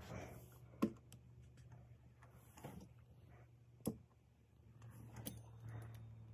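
Pizza-cutter wheel cutting rolled pie dough into strips on a wooden board: quiet, with four sharp clicks spread through it over a faint steady low hum.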